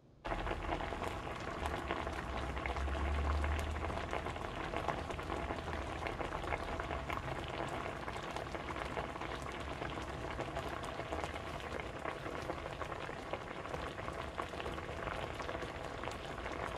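Spicy soft-tofu stew bubbling in a pot: a steady hiss thick with small pops and crackles.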